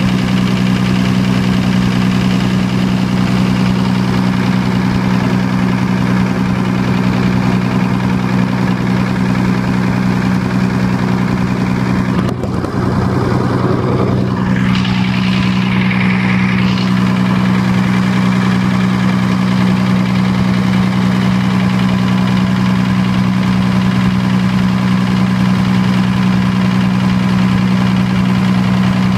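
Diesel generator engine running steadily at constant governed speed, an even hum with no change in pitch.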